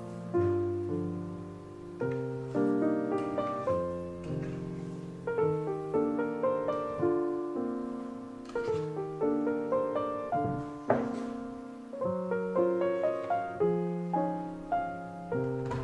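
Piano music: an unhurried melody of single notes and soft chords, each note struck and left to fade.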